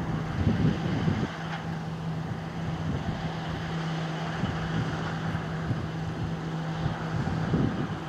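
A farm machine's diesel engine running at a steady pitch. Wind buffets the microphone in the first second and again near the end.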